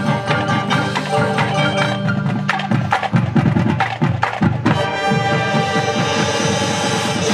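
High school marching band playing its show, with the front ensemble's marimbas and vibraphone playing quick mallet passages over low held notes. About five seconds in, the band sounds a full held chord.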